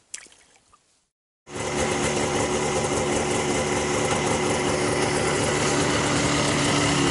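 A few faint clicks, then from about a second and a half in, a Yamaha VK540 snowmobile's two-stroke engine running steadily.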